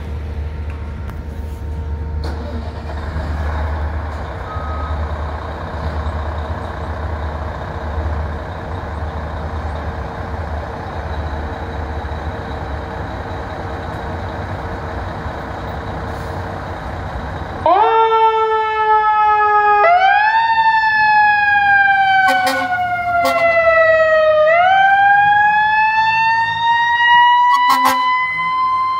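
A fire engine's motor runs with a steady low rumble. About two-thirds of the way through, its siren starts suddenly and wails: it rises, falls slowly over about four seconds, then rises again. A few short sharp clicks come near the end.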